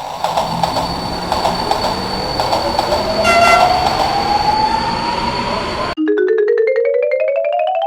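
Train sound effect: a rumbling run with fast clacking, a slowly rising whine and a brief horn hoot about three seconds in. About six seconds in it cuts off abruptly into a quick rising run of notes.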